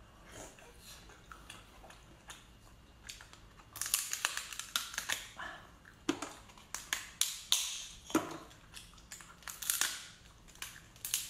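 Cooked lobster shell cracking and crunching as it is pulled apart by hand and bitten, a dense run of sharp cracks starting about four seconds in.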